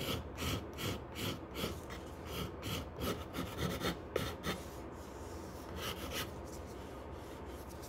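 Small hand file scraping old varnish off the edge of a wooden box, in quick short strokes about four a second. The strokes stop after about four and a half seconds, with a couple more near six seconds.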